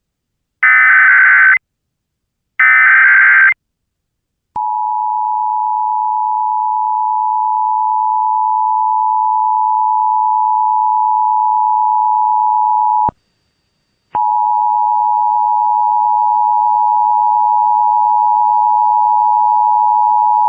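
Emergency Alert System test: two short bursts of screechy SAME header data tones, then the steady two-tone EAS attention signal for about eight and a half seconds. It cuts off, and after about a second the attention tone starts again.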